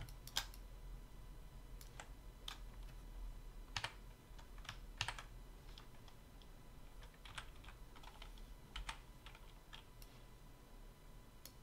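Computer keyboard keys pressed in scattered, irregular clicks, faint, with a low steady hum under them.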